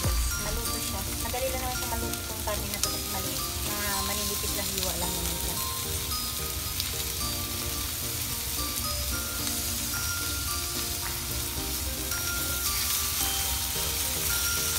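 Sliced pork and onion frying in a nonstick pan with a steady sizzle, turned over now and then with chopsticks.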